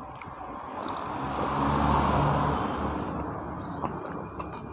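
A motor vehicle passing by, its engine and road noise swelling to a peak about two seconds in and then fading away.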